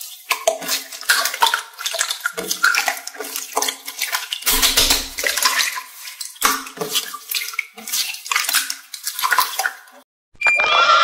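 Hands squeezing, stretching and kneading a large lump of glitter slime: irregular wet squelches and sticky popping crackles, which stop about ten seconds in.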